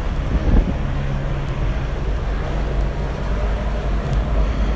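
Steady low engine drone of a vehicle, heard from on board, with a rushing noise over it.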